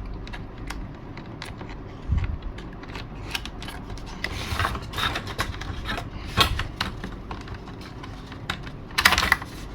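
Small clicks, taps and scraping from hands working a latch into the cockpit of a model airplane. The handling noises are scattered, with a louder cluster of clicks near the end.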